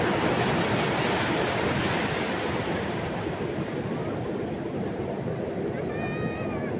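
Ocean surf breaking on the beach: a steady rush of waves, with wind on the microphone. About six seconds in, a brief high-pitched call rises over it.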